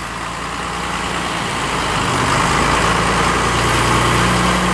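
John Deere 2140 tractor's diesel engine running under load, growing steadily louder as the front loader lifts its bucket of rubble up to the skip.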